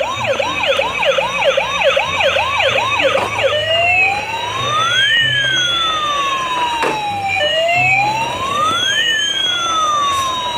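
Toy ambulance's siren sound, switched on: a fast yelp of rising chirps, about three a second, for the first three and a half seconds, then changing to a slow wail that rises and falls twice.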